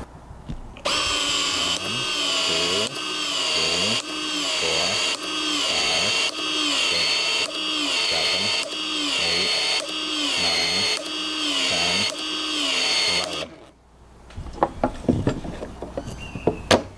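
Cordless PEX expansion tool working the end of a 3/4-inch PEX-a pipe under an expansion ring: the motor runs in about twelve even strokes, one a second, each with a whine that dips and comes back as the head opens and closes. It stops near the end, followed by a few sharp knocks as a brass fitting is pushed into the expanded pipe end.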